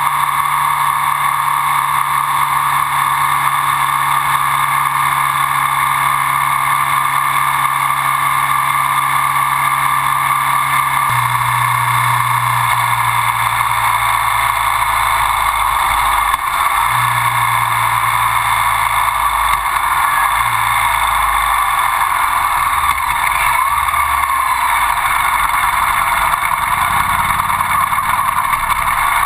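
Ducati Sport 1000's air-cooled L-twin engine running at road speed, with steady wind noise rushing over the microphone. The engine note drops in pitch about eleven seconds in and shifts down again a few times after, as the bike slows.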